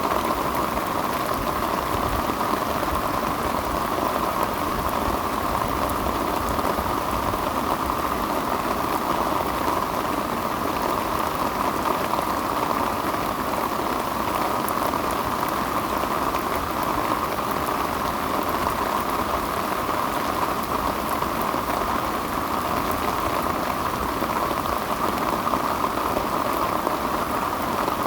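Heavy downpour of rain falling steadily, a dense, even hiss of drops that does not let up.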